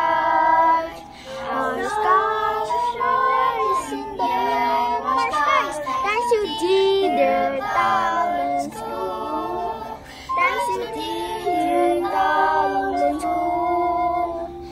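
Children singing the school song in unison, holding and gliding through melodic notes.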